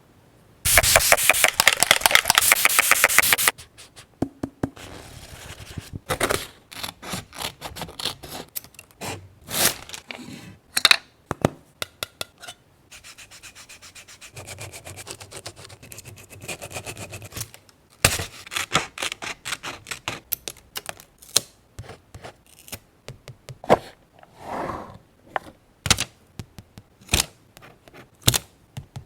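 Scrapbooking paper being worked by hand: about three seconds of loud, rapid rubbing strokes near the start, then scattered taps, clicks and rustles of paper and stickers being handled.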